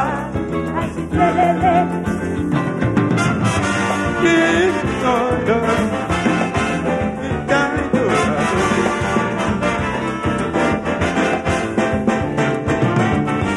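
Live calypso band playing an instrumental passage, with brass (trumpet and trombone) over electric guitar, bass and percussion.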